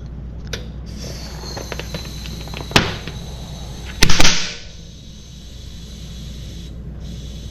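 Tubeless bicycle tyre being inflated onto its freshly taped rim: a steady hiss of air, a sharp crack about three seconds in, then loud snaps with a short burst of air about a second later as the beads pop onto the rim, after which the hiss fades.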